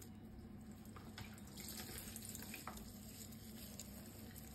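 Faint, soft rustling with light patters of finely shredded cabbage being sprinkled by hand over cabbage rolls in a stainless-steel pot, over a low steady hum.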